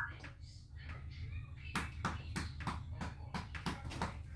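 A quick run of sharp clicks, about five a second, starting about two seconds in, over a low steady hum.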